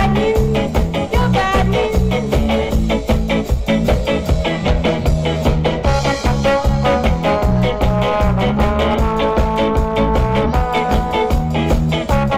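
Live ska band playing an instrumental passage with a steady upbeat rhythm, bass, guitar and sustained horn or keyboard lines, recorded in the crowd's space.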